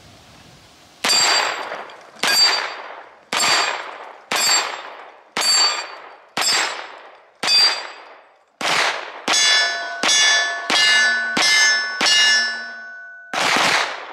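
A 9mm CZ Scorpion Evo firing about fifteen single shots. They come about one a second at first, then quicker, about two a second, in the second half. Steel plate targets ring after the hits, with long ringing tones over the faster string.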